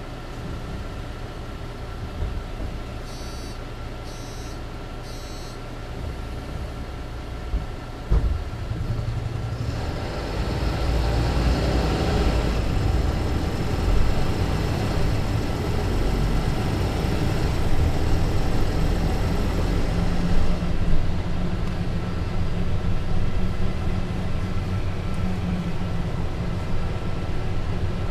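Mercedes-Benz Citaro C2 LE city bus idling with a steady hum, three short beeps a few seconds in and a sharp thump about eight seconds in. Then the engine works harder as the bus pulls away and accelerates through its Voith automatic gearbox, with a rising pitch and a change in the engine note about twenty seconds in.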